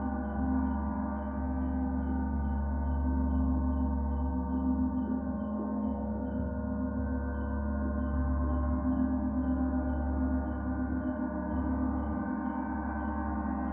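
A gong droning in a sustained wash of many overlapping tones over a deep low hum, swelling and fading gently without separate strikes. Faint, regular cicada chirps sound above it at about two a second, pausing briefly about halfway through.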